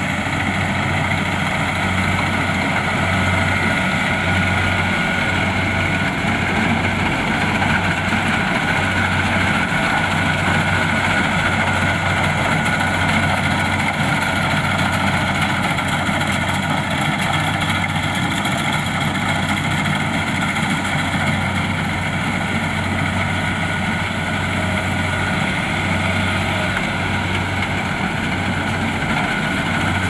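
Kubota DC-70 Plus combine harvester running steadily as it cuts rice: a constant low engine hum with a steady high whine above it.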